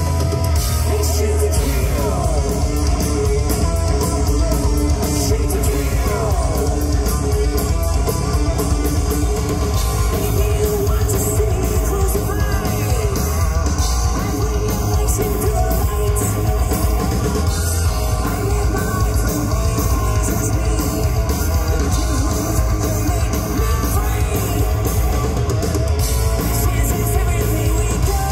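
Heavy metal band playing live: distorted electric guitars, bass guitar and drum kit with a sung lead vocal, heard from the audience.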